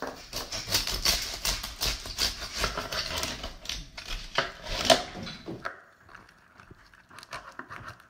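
Knife cutting into the crackling skin of a rotisserie-roasted pork belly: a dense run of sharp, crisp crunches, loudest about five seconds in. After that come fainter, scattered crackles as the slicing goes on.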